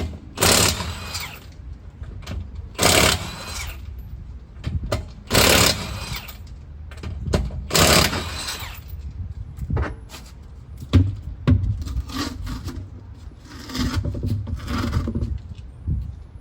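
Power tool running in short, loud bursts, several of them about two to three seconds apart and then weaker, irregular ones, as the car's wheels are being taken off.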